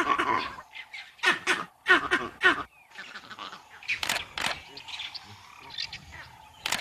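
Vervet monkeys giving alarm calls at a leopard: short, loud, harsh barks in quick groups, several in the first few seconds and a few more later.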